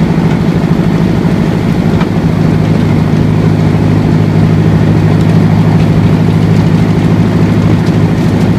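Tractor engine running steadily at a constant speed, pulling and driving a Gilibert Helix 7 manure spreader that is spreading manure.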